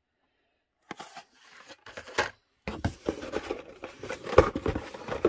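Hot Wheels cars on card-and-plastic blister packs being pulled out of a cardboard shipping case: rustling and scraping of card against cardboard with sharp plastic clicks. It starts about a second in, after near silence, and the loudest click comes near the end.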